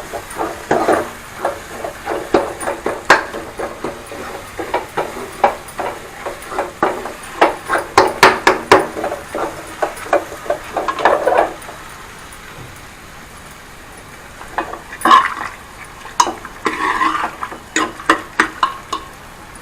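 Metal spoon stirring in a cooking pot, with rapid clinks and scrapes against the metal over a light sizzle. The strokes stop for a couple of seconds past the middle, then start again.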